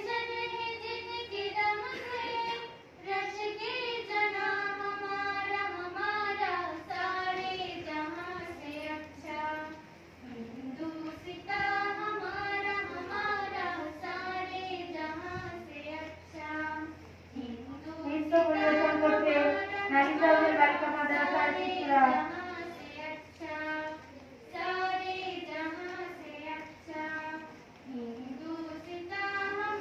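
A girl singing a song in phrases with short pauses between lines, loudest a little over halfway through.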